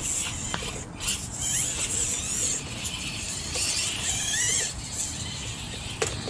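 Small electric motors and gearboxes of 1/24-scale RC rock crawlers whining in spurts as the throttle is worked, the pitch wavering up and down. A single sharp knock near the end.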